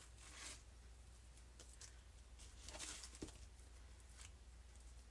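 Near silence over a low steady hum, with faint soft handling sounds: a few brief rustles and a small tap about three seconds in, as raw cubed steaks are laid by hand into gravy in a slow-cooker crock.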